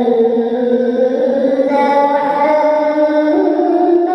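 A single voice chanting in Arabic, holding long, drawn-out notes that move in steps to new pitches.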